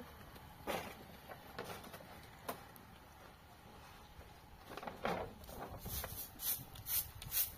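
Bundled-straw hand broom sweeping in quick, short strokes that come two to three a second from about six seconds in, after a few scattered scratches and scuffs.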